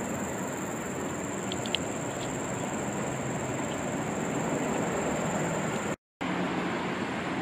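Steady outdoor ambience: an even background rush with a constant high, thin insect drone above it, and a few short high chirps about a second and a half in. The sound cuts out completely for a moment about six seconds in.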